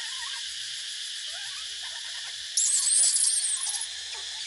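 A baby monkey gives a run of shrill, quickly gliding squeaks for about a second, starting about two and a half seconds in, over a steady high hiss.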